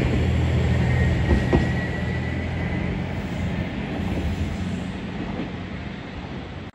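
Matsuura Railway MR-600 series diesel railcar moving off, its engine drone fading steadily as it goes, with a couple of rail-joint clanks about a second and a half in and a faint high whine. The sound cuts off abruptly near the end.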